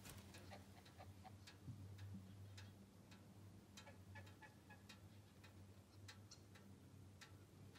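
Near silence: faint, irregular ticks and clicks over a low steady hum.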